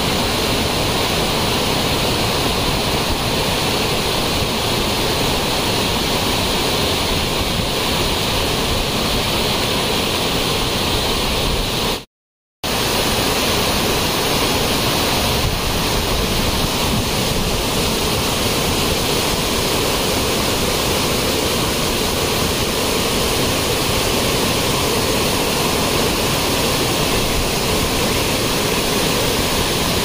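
Whitewater rushing and tumbling over boulders in a rocky stream below a waterfall, a loud, steady rush. It breaks off for about half a second roughly twelve seconds in.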